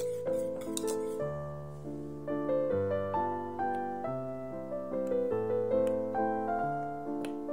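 Background piano music: a calm melody of struck notes, each fading, over held low bass notes.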